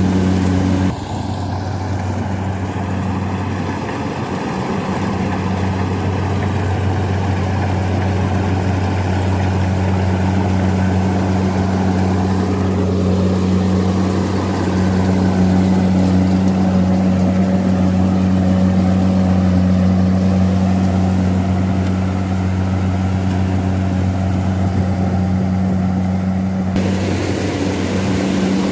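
Diesel engine of a rice combine harvester running in a steady drone at constant speed while it cuts and threshes rice.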